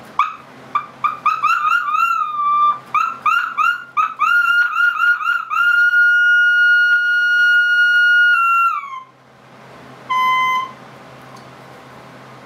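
Homemade 1920s vacuum-tube radio whistling with feedback: a run of short chirping whistles that swoop up in pitch, then a steady high whistle held for a couple of seconds that slides down and stops, and one brief whistle near the end. The freshly wired set is oscillating as its controls are adjusted.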